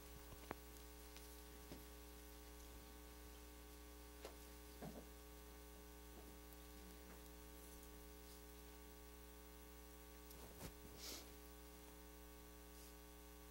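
Near silence with a steady electrical hum, and a few faint, scattered rustles and knocks.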